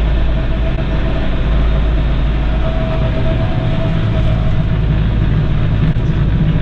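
Kioti RX7320 tractor's 73-horsepower diesel engine running steadily under load, pulling a box blade through compacted gravel, heard from inside the closed cab with the air-conditioning fan going.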